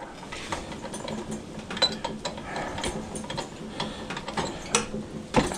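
A steel hand tool clicking and scraping against the aluminum header and crimp tabs of a car radiator as they are pried and bent open, in irregular taps with a louder cluster of clicks near the end.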